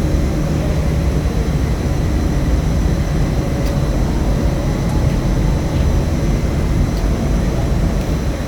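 Steam boiler plant machinery running steadily: a loud, even low hum with faint steady whining tones above it.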